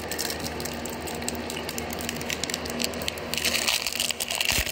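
Foil Pokémon TCG booster pack crinkling as it is handled and torn open, with the crinkling growing denser and louder near the end.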